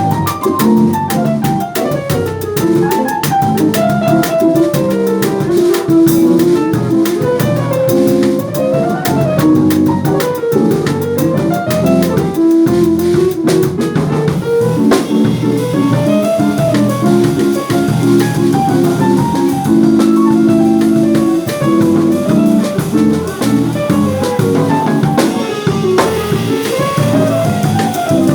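Instrumental music: a band with drum kit and guitar playing a melodic break with a steady beat.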